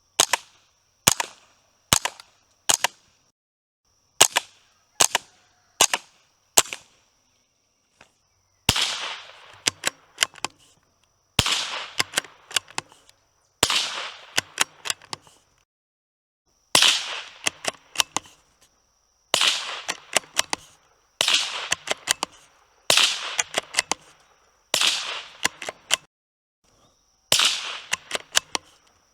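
.22 rimfire bolt-action rifle fired again and again, about two dozen shots roughly a second apart, each a sharp crack with a short echo trailing after it. The shots compare the rifle with and without a Hush Point .22 silencer. A faint steady high whine runs in the background.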